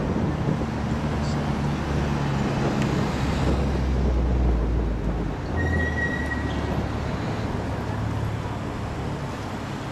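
Street traffic: cars passing at low speed with engine hum and tyre noise, loudest as one passes close about four seconds in. A brief high squeak sounds about six seconds in.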